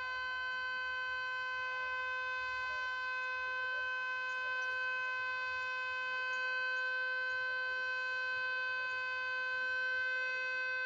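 Pole-mounted MS-290 electronic outdoor warning siren sounding a steady tone, held at one pitch without rising or falling.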